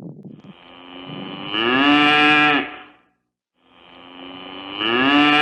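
A cow mooing twice: two long, drawn-out moos that swell in loudness, the pitch rising slightly and then held, with a short gap between them.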